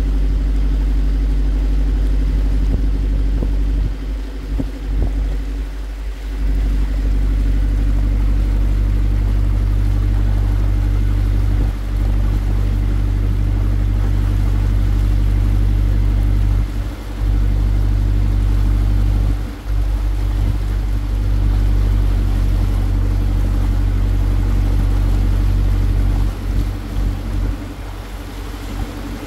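The water taxi's engine running steadily under way, a loud low hum that dips briefly a few times and eases off near the end.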